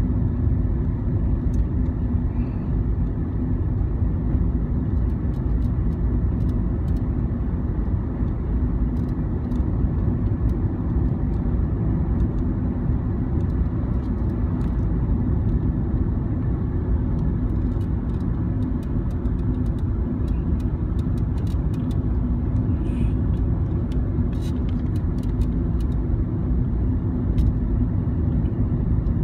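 Steady road noise of a car driving at highway speed, heard from inside the cabin: an even low rumble of tyres and engine with a steady low hum.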